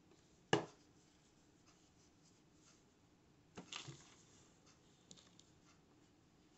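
Faint scratching and rubbing of a crochet hook drawing yarn through stitches, with one sharp click about half a second in and a short run of louder scrapes a little past the middle.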